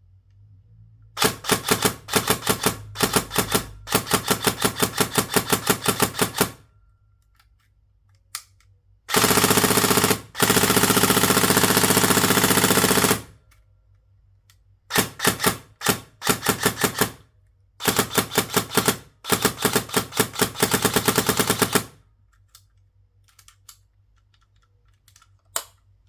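Tokyo Marui HK416C airsoft electric gun, stock gears and motor on a 7.4 V battery, firing full-auto in a series of bursts of rapid shots, with one long unbroken burst of about four seconds in the middle. A few faint clicks near the end.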